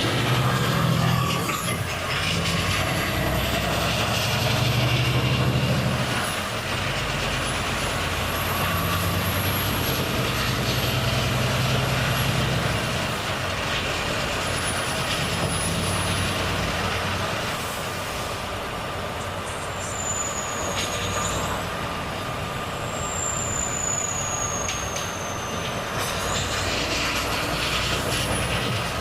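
Volvo FH truck's diesel engine running on the road, its low drone swelling and easing with load. A faint high whine slides up and down over it.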